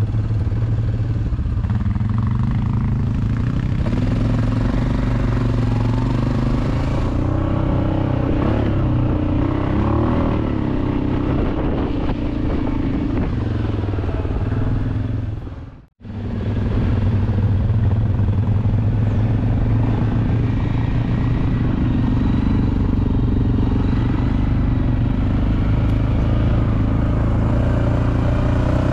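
A vehicle engine running steadily, its pitch rising and falling a little about ten seconds in. Just past halfway the sound cuts out for a moment, then resumes as before.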